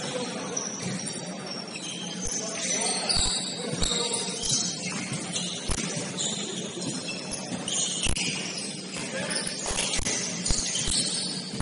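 Basketball game on a gym court: a ball bouncing in irregular thuds and sneakers squeaking in short high chirps.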